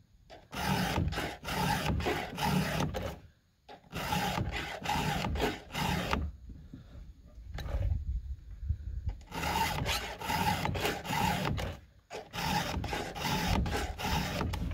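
A 7/32-inch round file rasps across the cutting teeth of a Husqvarna 572 XP saw chain in quick repeated strokes, sharpening it. It pauses briefly about three seconds in and goes quieter for about three seconds midway.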